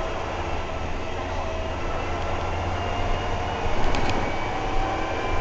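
Interior of a SICCAR 177 city bus under way: a steady low engine drone with road and body noise, and a couple of sharp clicks or rattles about four seconds in.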